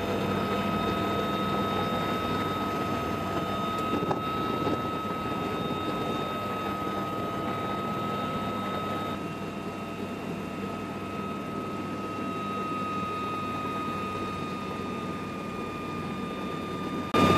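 Cabin noise inside a UH-1Y Venom helicopter with the door open: steady rotor and twin-turbine engine noise under a constant high whine from the engines and gearbox. The noise jumps louder suddenly just before the end.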